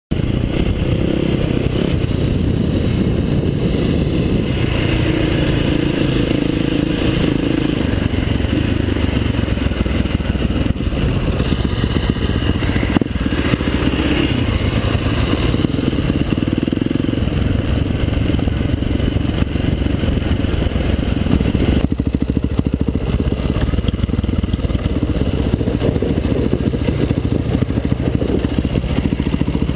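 Enduro motorcycle engine running on the move over a rough dirt trail, heard from a helmet-mounted camera, with a sharp knock about halfway through.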